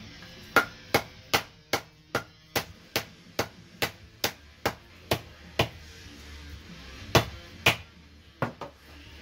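A mallet striking a glued poplar wedge to drive it into the kerf at the top of an axe handle seated in the head. About thirteen steady blows come two to three a second, then a short pause and four more, the last two close together.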